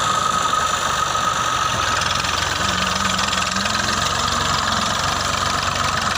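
Massey Ferguson 240 tractor's three-cylinder diesel engine running steadily under load as it pulls a fully loaded trolley through soft soil, with a steady high whine over the engine sound.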